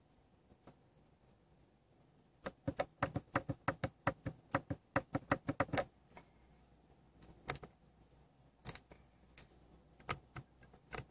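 Plastic button clicks from a 2005 Mercedes-Benz CLK500's dash controls as they are pressed to step through the instrument cluster's service menu: a quick run of about five clicks a second for three or four seconds, then a few single clicks near the end.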